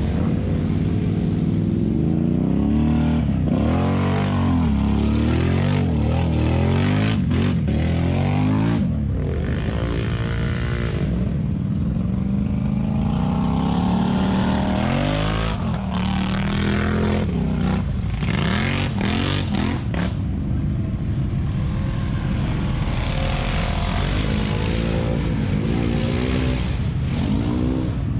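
ATV engines revving up and down as the quads are driven through mud, the pitch rising and falling again and again.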